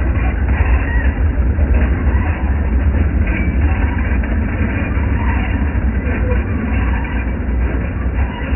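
O scale model train running past on track laid on a hard floor: a C&O diesel locomotive pulling freight cars, with a steady, loud rumble of motor and wheels.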